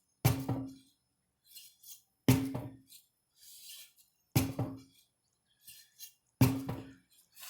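25 lb sledgehammer striking four times, about two seconds apart. Each blow is a heavy impact with a brief low ring and a quick rattle after it.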